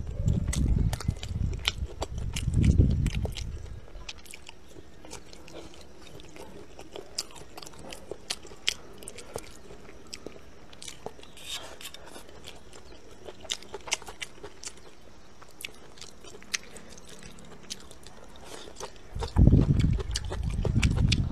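Close-miked chewing and crunching of stir-fried pork and green chili peppers: wet mouth clicks and crunches throughout, with heavier, louder chewing in the first few seconds and again near the end.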